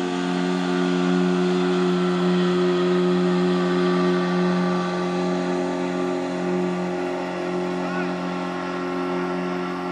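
Motorboat speeding across open water: a steady engine drone that eases off slightly in the second half as the boat pulls away.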